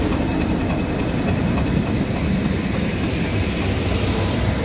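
Class 31 diesel-electric locomotive's English Electric V12 diesel engine ticking over at idle, a steady low rumble with a faint even hum over it.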